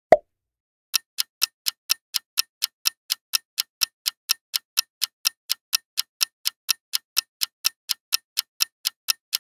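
A short pop, then a clock-ticking sound effect: even, sharp ticks about four a second, counting down the time left to answer a quiz question.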